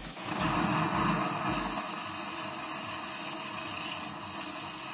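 Siemens EQ500 espresso machine blowing steam through its milk system in the cleaning cycle: a steady hiss that starts just after the opening, with a low pulsing from the machine during the first two seconds.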